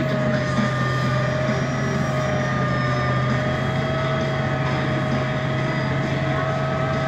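MAN Lion's City G CNG articulated bus under way, heard on board: its MAN E 2866 gas engine running steadily, with a steady low hum and a high whine over road and running noise.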